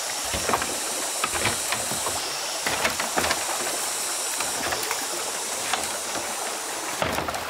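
Stream water rushing steadily, with a few irregular knocks and clicks over it.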